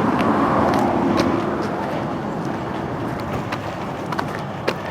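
Highway traffic noise: a vehicle passing, loudest in the first second or so with a faint hum, then fading into the steady traffic rush.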